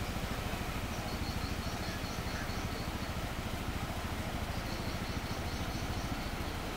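Steady low rumble of the Bono tidal bore's breaking water, with faint high chirping in two runs of about five pulses a second over it.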